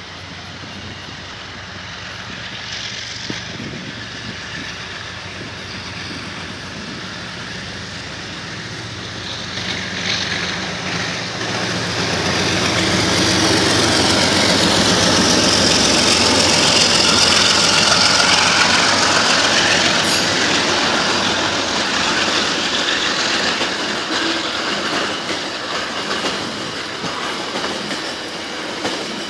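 Coal train passing: a rumble that builds over the first ten seconds or so, then the loud, steady rolling and clatter of coal hopper wagons going by, with a high squeal from the wheels at its loudest.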